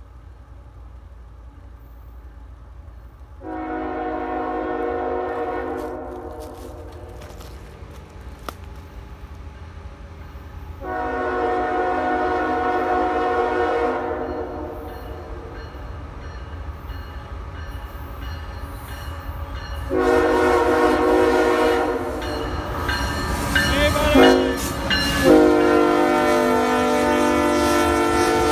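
Freight train's GE diesel locomotive sounding its multi-chime air horn in long blasts for a grade crossing as it approaches, with its engine rumbling underneath and growing louder. The last blasts come close together and waver in pitch as the locomotive passes.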